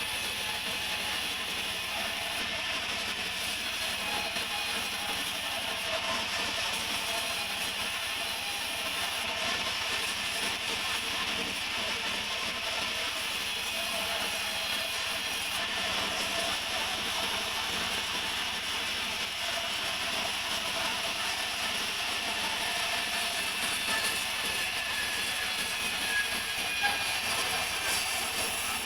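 Sawmill saw running steadily as it cuts through a mahogany log, a continuous high, even machine noise.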